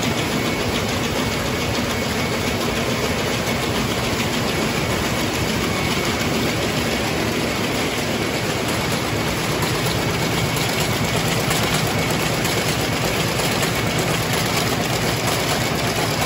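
Water-jet weaving looms running with a steady, fast mechanical clatter.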